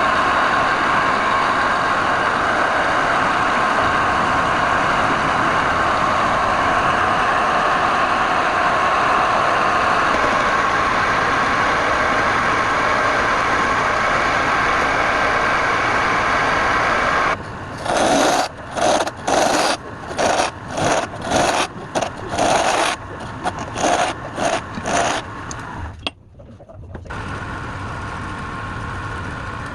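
An electric power tool motor running steadily with a whine, then switching on and off in short bursts about twice a second, then running again at a lower level near the end.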